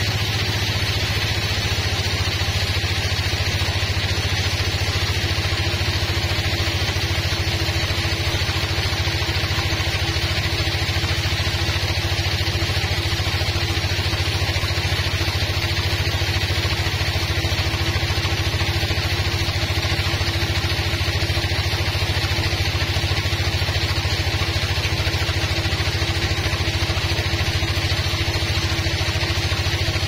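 Band sawmill running steadily while sawing a rosewood log, a constant machine hum with a higher tone joining about six seconds in.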